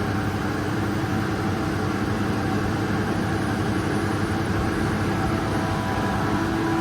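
Kaeser SK25T screw air compressor running loaded, pumping up pressure in its air receiver: a steady machine drone with a hum. A higher steady tone in the hum grows stronger near the end.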